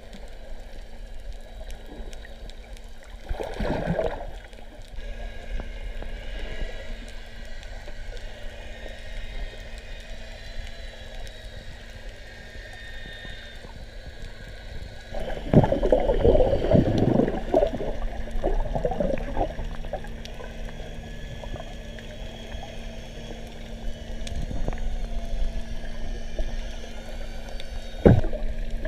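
Water heard from underwater through a camera housing: a muffled wash with a steady faint hum beneath it. Gurgling bubble bursts come about three seconds in and again for several seconds from about the middle. A single sharp knock sounds near the end.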